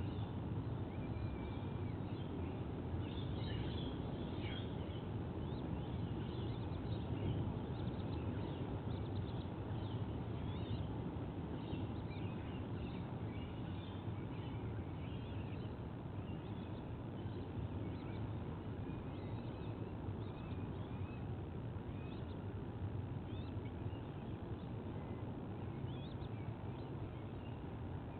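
Many short, high bird chirps and calls scattered over a steady low background rumble.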